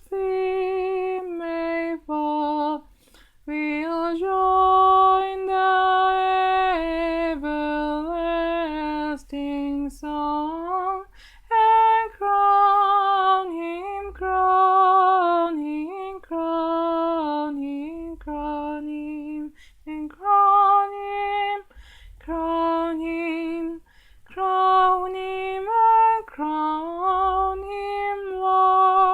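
A woman singing a hymn alone and unaccompanied: slow phrases of long held notes with a gentle vibrato, broken by short pauses for breath.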